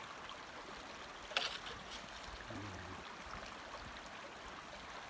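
Shallow creek running over rocks, a steady trickle of water, with one sharp click about a second and a half in.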